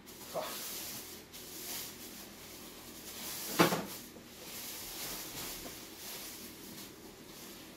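Plastic wrapping rustling and crinkling as it is pulled off a new electric unicycle, with a loud sharp knock about halfway through.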